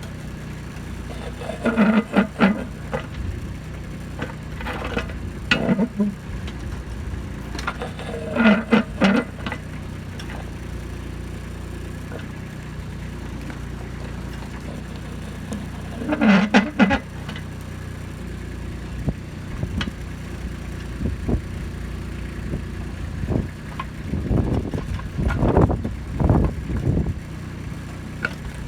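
Kubota B2630 compact tractor's three-cylinder diesel running steadily while the backhoe digs. There are several short, louder bursts over the engine, and a run of knocks and scrapes in the last few seconds.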